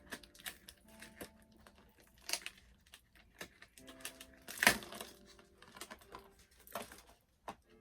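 Crinkling and clicking of plastic doll packaging being handled, a string of irregular light crackles with one louder crackle about halfway through.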